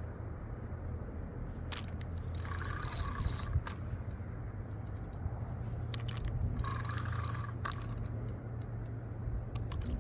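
Fishing reel being cranked in two short spells with rasping clicks, and scattered sharp ticks between, over a steady low hum.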